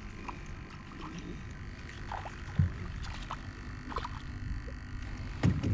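Faint scattered knocks and clicks of handling aboard a small fishing boat, with a louder thump about two and a half seconds in, over a low steady background.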